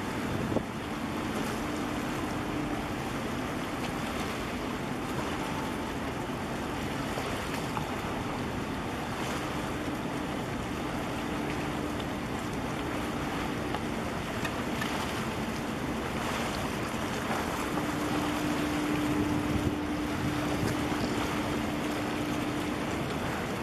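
Steady wash of harbour water and wind on the microphone, with a faint low hum that comes and goes and is strongest near the end.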